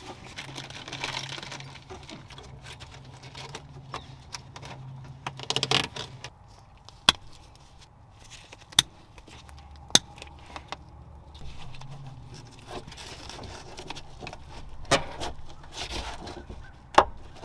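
Hands working the trailer wiring harness and zip ties: rustling and jangling handling noise, with several separate sharp clicks.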